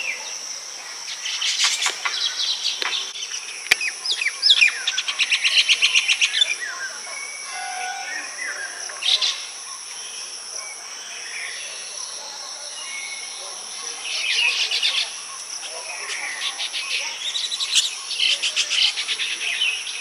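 Baya weavers chattering in repeated bursts of fast, rapid-fire notes, over a steady high insect drone.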